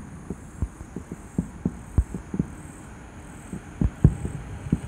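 Distant aerial fireworks shells bursting: a run of dull booms, two or three a second at uneven spacing, the strongest about two seconds in and again near the end.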